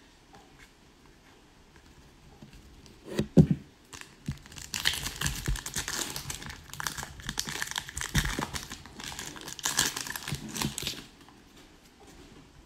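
Foil wrapper of an Upper Deck hockey card pack being torn open and crinkled for several seconds, stopping near the end, after a single thump about three seconds in.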